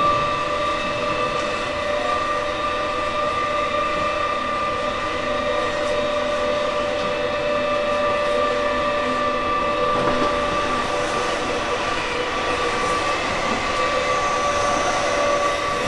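Tokyo Metro 16000 series train, 2nd batch with Toshiba IGBT inverter and permanent-magnet synchronous motors, running at about 57 km/h, heard inside the car: steady rail and wheel noise with a steady high whine over it.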